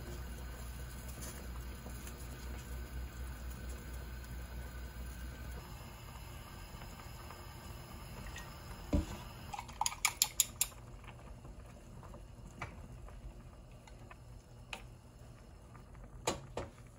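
Kitchen sounds of soup cooking on a gas hob: a steady low hum of the burner and simmering pot that drops away about five and a half seconds in, then a dull knock, a quick run of glass-and-metal clinks around the ten-second mark as a seasoning bottle is handled over the pot, and scattered small clicks, with a couple of clicks near the end as the stove knob is turned.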